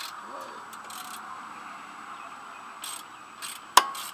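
Hand tool working on a riding mower's engine: a few soft clicks and scrapes, then one sharp metallic clink with a brief ring near the end, over a faint steady hiss.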